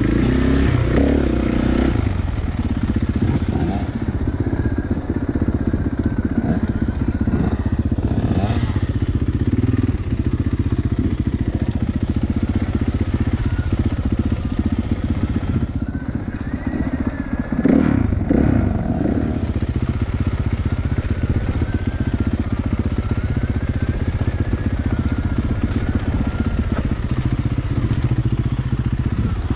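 Kawasaki KX450F's single-cylinder four-stroke engine running as it is ridden along a dirt trail, heard close up from the bike itself, its revs rising and falling with the throttle.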